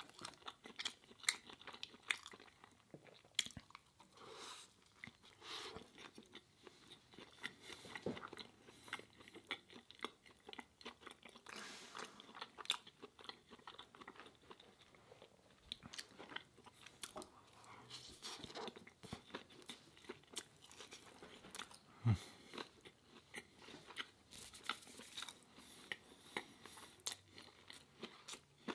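Close-miked chewing of mouthfuls of a ciabatta breakfast sandwich: many small, irregular crunches and mouth clicks.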